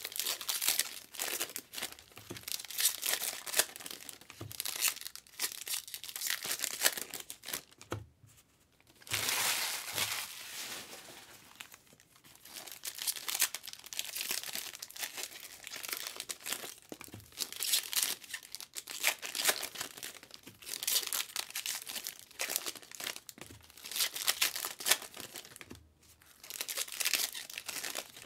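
Foil trading-card pack wrappers crinkling and tearing as packs are ripped open and handled, in irregular bursts with brief lulls about eight seconds in and again near the end.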